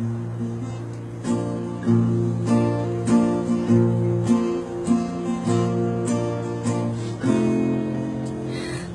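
Acoustic guitar playing a song's introduction: chords struck about every 0.6 s and left to ring.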